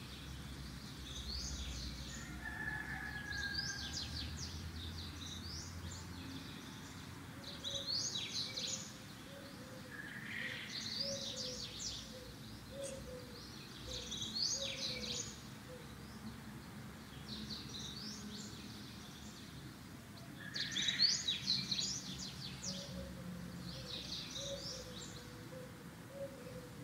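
Bird chirping in short bursts of rapid, high twittering that repeat every second or two.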